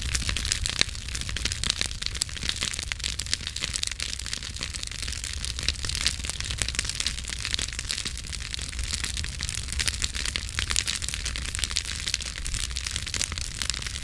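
Campfire burning, its wood crackling and popping in a dense, irregular stream over a low, steady rumble.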